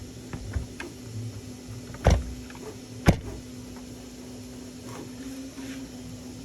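Small clicks and two sharp knocks about a second apart from the hard plastic parts of a 1/14 RC skid steer model being handled, likely its loader arm being checked for play, over a faint steady hum.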